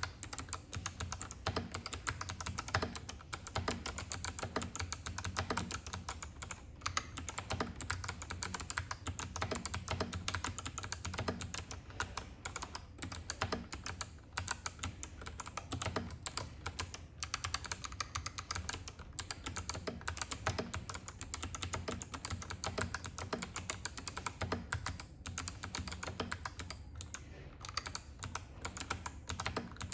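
Continuous typing on a mechanical keyboard with stock Kailh Box Navy switches: clicky, heavy switches giving a sharp click with every keystroke in a dense, unbroken stream.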